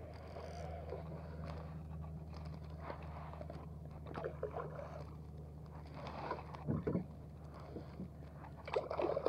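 Steady low hum of a boat engine running, with a few light knocks and rustles of fishing gear being handled, the loudest a dull thump about seven seconds in.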